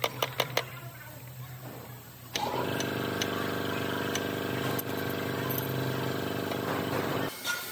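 A few sharp metal clicks as a hydraulic piston pump's cylinder block is seated by hand. About two seconds in, a steady, pitched machine drone starts suddenly and runs for about five seconds before cutting off abruptly.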